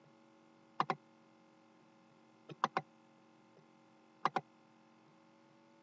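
Computer mouse clicking: a double click about a second in, a quick run of three clicks near the middle, and another double click about four seconds in.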